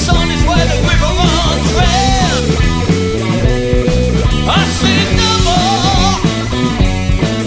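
A rock song with a singer, guitar and drums.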